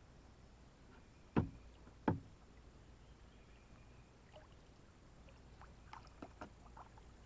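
Two loud knocks on a kayak, under a second apart, followed a few seconds later by several lighter taps and clicks.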